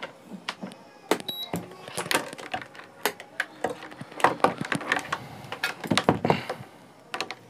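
Irregular clicks and plastic clatter as a multimeter and its test leads with alligator clips are handled and set up, with one brief high beep about a second in.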